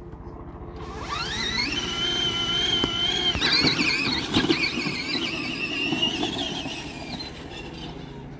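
Huffy Torex 24-volt electric ride-on ATV's motor and gearbox whining at a high pitch. The whine climbs as it speeds up about a second in, holds steady, then wavers with the changing load over rough ground before easing off near the end.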